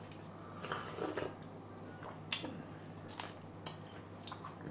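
A person eating: a short, soft sip from a small bowl of thin sour raw-mango chutney about a second in, then quiet chewing with a few faint clicks of the mouth.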